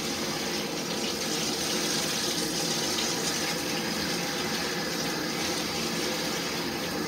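Bathtub faucet running steadily, water pouring into a plugged tub as it fills.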